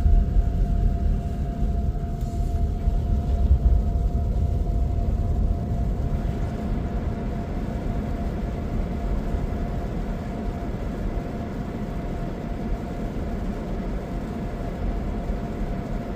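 Steady low road and engine rumble inside a moving four-wheel-drive Jeep, with a faint steady whine. It is a little louder for the first several seconds, then evens out.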